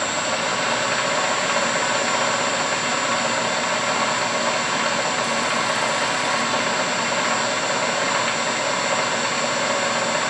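Wood lathe running at a steady speed: an even motor hum and whir with a thin high whine on top.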